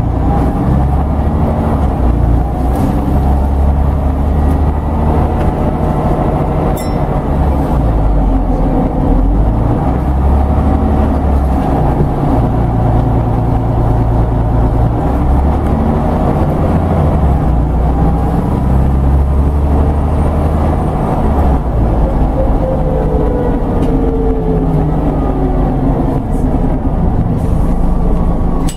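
Scania N94UD double-decker bus heard from inside the lower deck: the diesel engine and drivetrain drone steadily, their low note stepping up and down as the bus changes speed. A brief falling whine comes near the end.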